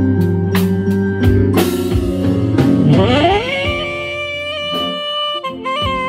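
Saxophone over a slow backing of drums, bass and chords. About halfway through the sax enters with a steep upward scoop into a long held note with vibrato, then steps up to a higher note near the end.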